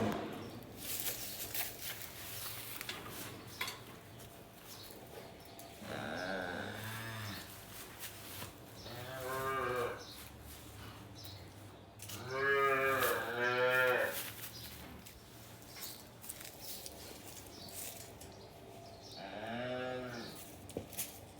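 Dairy calves mooing: about five separate calls that rise and fall in pitch, the loudest two back to back near the middle. Knocks and rustling sound between the calls.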